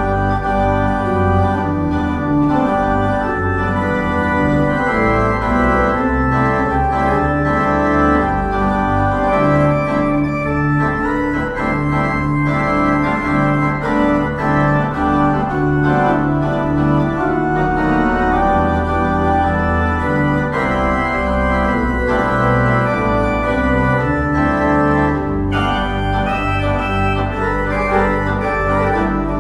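Organ music of held, slowly changing chords: the closing postlude after the blessing.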